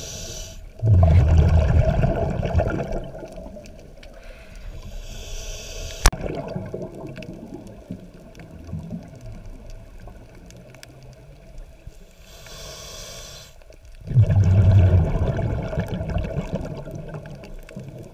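Scuba diver breathing through a regulator underwater: two long exhalations as loud low rumbles of bubbles, about a second in and again near the end, with the regulator's hiss on the inhalations between them. A single sharp click comes about six seconds in.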